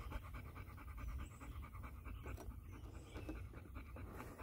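Dogs, a Doberman and a red mixed-breed dog, panting faintly.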